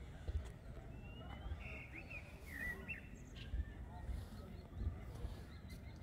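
Small birds chirping in short, quick calls, clustered from about a second and a half to three seconds in, over a low rumble and irregular bumps.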